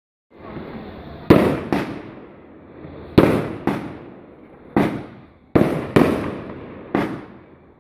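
Aerial fireworks going off: a hissing of shells rising, then eight sharp bangs as they burst, some in quick pairs and some single, each dying away over about half a second.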